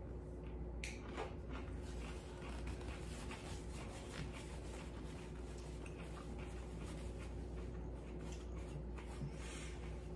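A man chewing a spoonful of kimchi: faint mouth and teeth noises, many small clicks scattered throughout, over a low steady hum.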